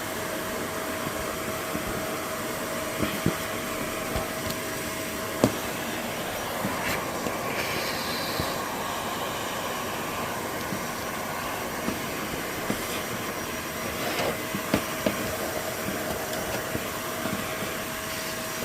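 Vacuum cleaner running steadily as it sucks dust out of a desktop computer, with a held whine and scattered clicks and knocks throughout.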